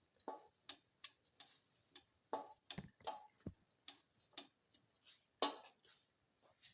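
A spatula stirring vegetables in a pan, scraping and knocking against it in irregular clicks and short scrapes; the loudest comes a little after five seconds in.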